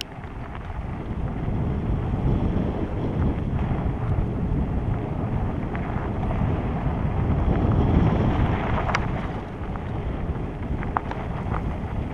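Wind rushing over a helmet-mounted camera's microphone as a Co-op Cycles hardtail mountain bike rolls along a dirt trail, with tyre rumble and a few light clicks and rattles from the bike near the end.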